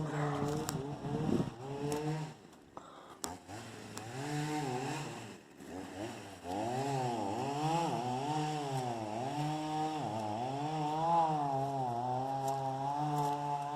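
Chainsaw engine running, its pitch rising and dipping again and again as it is throttled up and loaded in the cut. It is fainter for a few seconds in the middle, then runs on steadily.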